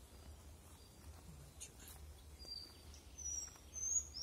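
A songbird calling: several short, high whistled notes with slight slides, starting about halfway through and loudest near the end, over a low steady rumble.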